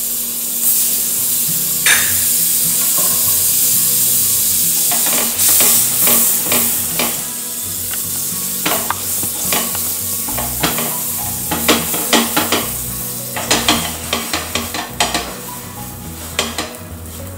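Butter sizzling on a hot iron tawa as pav buns toast in it. A steady hiss, joined about five seconds in by frequent crackles and pops that thin out near the end.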